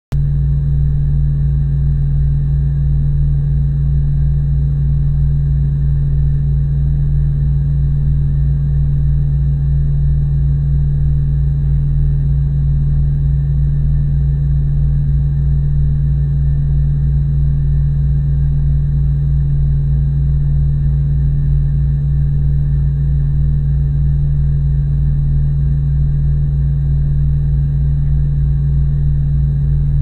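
Semi truck engine humming: one deep, unchanging tone over a lower rumble, holding the same pitch and level throughout.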